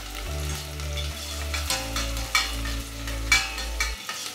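Chopped onions and garlic sizzling in hot oil in a stainless steel pot while being stirred, with a metal spatula scraping against the pot a few times.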